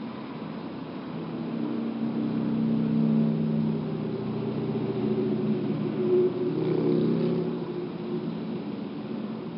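A motor vehicle's engine running with a steady low hum, swelling about a second in and easing off near the end.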